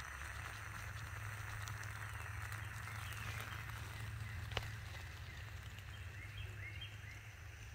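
Alcohol stove burning under a lidded titanium pot of water heating toward a boil: a soft steady hiss, with a single sharp tick about four and a half seconds in. Faint short rising chirps of small animals are heard a few times.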